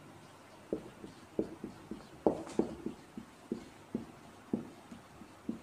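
Marker pen writing on a whiteboard: an irregular run of short taps and scratches as letters are written.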